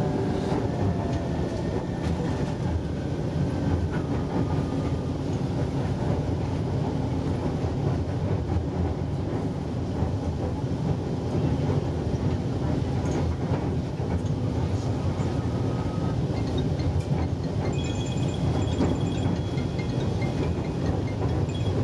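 Manila MRT Line 3 train running along the line, heard from the ride: a steady rumble of wheels on rails. A faint whine falls in pitch in the first few seconds, and faint high tones appear near the end.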